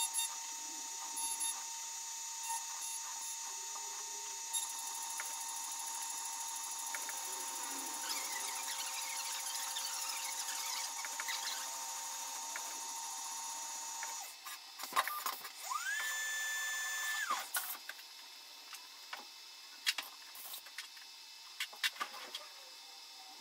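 Syil X7 CNC milling machine cutting under flood coolant, its audio sped up with the time-lapse footage: a steady high-pitched machining whine. About fifteen seconds in, the spindle speeds up to a held pitch and then winds back down, and the rest is quieter with scattered clicks.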